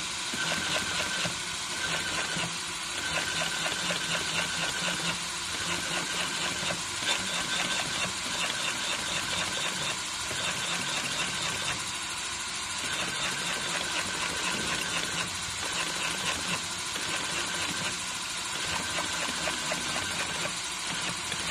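SP168 sidewall sole stitching machine sewing a shoe's sole side seam: a fast, even clatter of needle strokes in runs broken by a few brief pauses.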